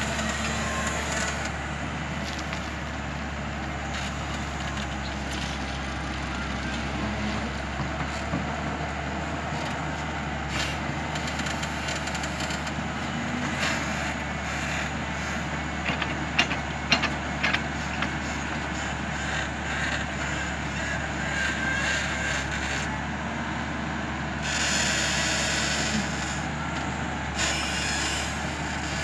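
JCB JS-series crawler excavator's diesel engine running steadily under digging load. A few sharp knocks come a little past the middle, and a louder rush of noise near the end.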